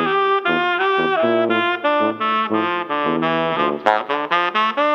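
Background instrumental music: a quick melody of short, changing notes with rich overtones, with one sharp hit about four seconds in.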